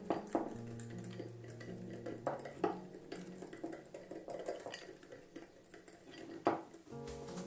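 Kitchen utensils knocking and clinking against dishes in a few sharp strikes, the loudest about six and a half seconds in, over soft background music.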